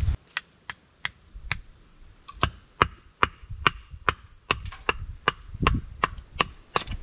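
Firewood being split by hand: a steady series of sharp knocks at about two to three strikes a second.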